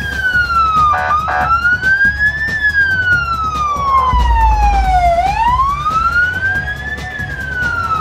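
Emergency vehicle siren in a slow wail, its pitch gliding up and down over a few seconds at a time, with two short blasts about a second in.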